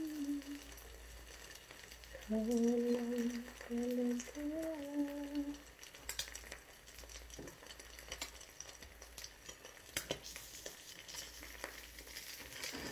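A woman humming a short tune in a few held notes during the first half, over the faint sizzle of food frying in a pan; a few light clicks follow in the second half.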